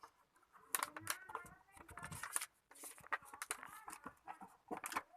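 Packaging being handled during an unboxing: irregular crinkling, rustling and sharp clicks.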